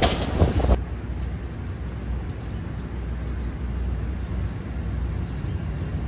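Wind buffeting the microphone, cutting off abruptly under a second in. After it comes a steady low outdoor rumble with a few faint, short high chirps.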